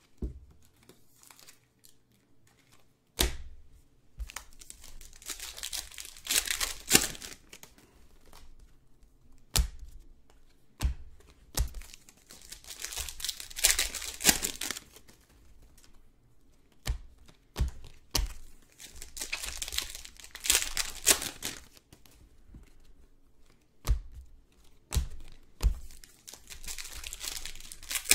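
Prizm basketball card packs being torn open, the wrappers ripping and crinkling in four bouts about seven seconds apart, with sharp taps and clicks in between.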